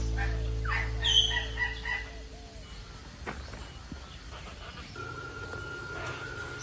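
Bird calls: short chirps with quick rising and falling glides in the first two seconds, over a low steady hum, then a thin steady whistle-like tone in the last second and a half.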